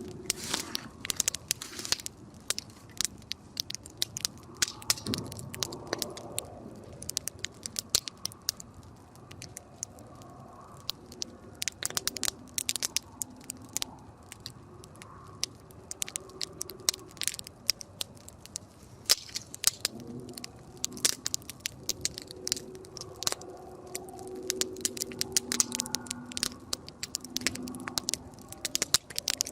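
Wood campfire crackling, with irregular sharp pops and snaps over a low hiss. Faint wavering tones sound underneath near the start and again in the last third.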